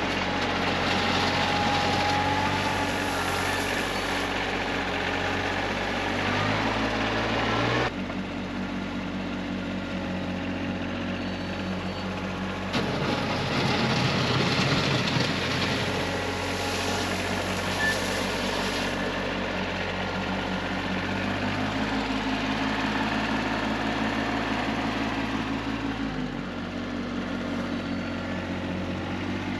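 TYM T25 compact tractor's engine running steadily while it works its front-end loader, its note shifting abruptly a few times. Two stretches of louder rushing, scraping noise, in the first few seconds and again around the middle, as gravel is scooped and poured from the loader bucket.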